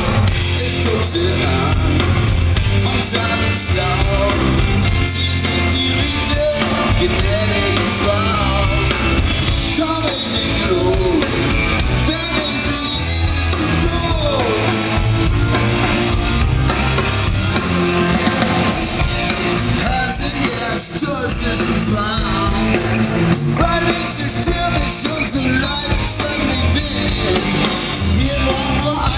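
Rock band playing live, with a singer and electric guitar over a steady beat.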